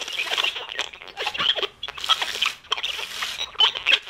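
A broken animated singing-and-dancing Santa figure making an irregular, continuous crackling and crunching noise instead of its song.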